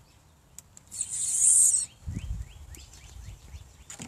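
Small birds chirping outdoors: a run of short, rising chirps about three a second through the second half. Before them comes a loud rustle lasting about a second.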